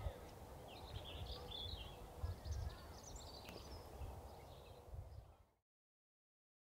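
Faint outdoor ambience: wind gusting on the microphone with small birds chirping now and then. It cuts to dead silence about five and a half seconds in.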